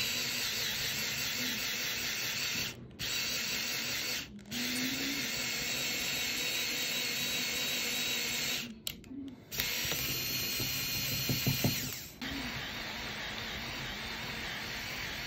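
Power drill with a gold-coloured twist bit drilling out the metal axle at the centre of a seized suitcase wheel, running steadily as it cuts into the metal and stopping briefly three times.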